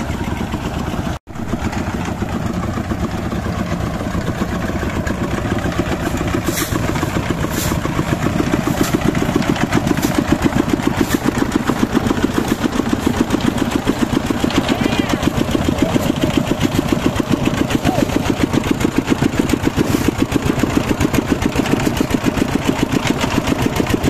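Engine of a concrete mixer machine running steadily with a fast even beat as the drum turns, with a run of sharp metallic clicks several seconds in.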